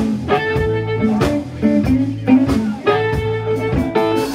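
Live blues band playing: electric guitar and bass guitar with amplified harmonica over a steady beat.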